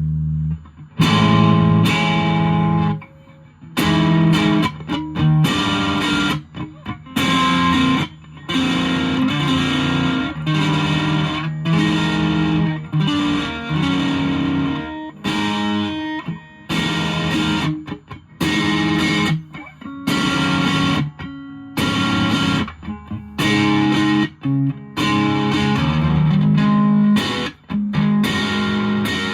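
Electric guitar, a Fender Japan Jazzmaster, played through a 1985 Japanese-made Boss DS-1 distortion pedal into an ELK FSB-45 amp: distorted chords and riffs, often cut short, with brief breaks between phrases. Heard through a smartphone's microphone in a small room.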